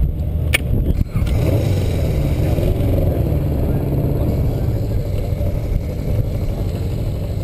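A racing kart's engine running, its pitch wavering up and down for a few seconds starting about a second in, over a steady low rumble. A few sharp knocks come in the first second.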